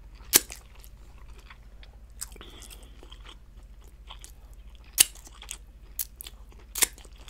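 Close-miked mouth sounds: wet smacks and sucking clicks as sticky fingers are licked clean, with quiet chewing between. A handful of sharp clicks stand out, the loudest about half a second in and others around five, six and seven seconds in.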